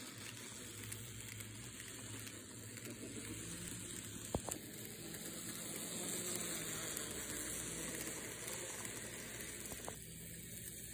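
N scale model train running along sectional track: a faint, steady whir of its small electric motor and wheels on the rails, growing a little louder in the middle, with a single sharp click about four seconds in.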